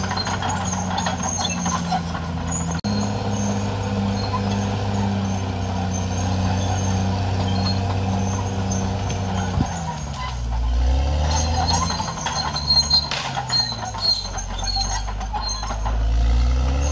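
Caterpillar D6R XL crawler dozer's diesel engine running steadily with a regular throb. In the second half its pitch sags and climbs back twice, with a few sharp knocks midway.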